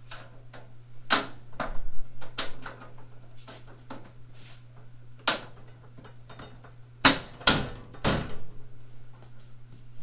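Irregular clicks and knocks of bolts, plates and tools being handled on a steel tool cart during assembly, with three louder knocks close together about seven seconds in. A steady low hum runs underneath.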